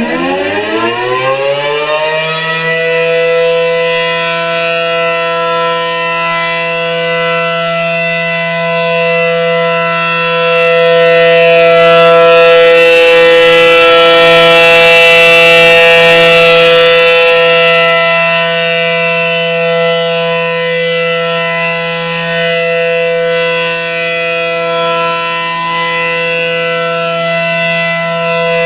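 ACA Allertor 125 outdoor warning siren winding up to full speed over the first few seconds, then holding a steady wail. The wail swells louder for several seconds midway and eases back.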